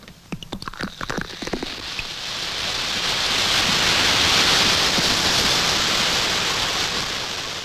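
Fizzy ginger ale poured from a bottle into a glass. A few clicks at first, then a hiss of bubbles that swells as the glass foams up and slowly fades.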